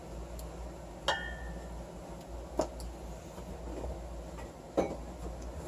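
A mixing utensil knocking against a bowl while stirring coloured glue: three short sharp clicks about a second and a half apart, over a low steady hum.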